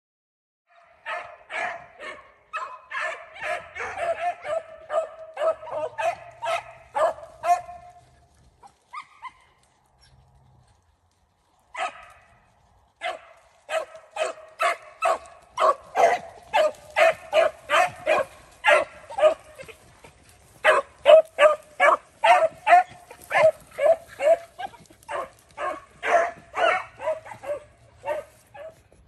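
Rabbit-hunting beagles baying on a rabbit's track: a fast, steady string of barks, about two to three a second, that breaks off for a few seconds near the middle and then starts up again. The dogs are in full chase, running the rabbit.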